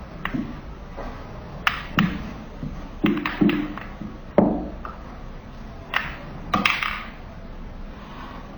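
A series of about ten irregular sharp taps and knocks, some followed by a brief ringing smear.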